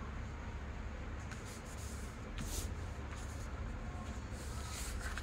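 A square sheet of origami paper rustling and sliding under hands as it is folded and creased. There are two louder swishes, about halfway and near the end, over a low steady hum.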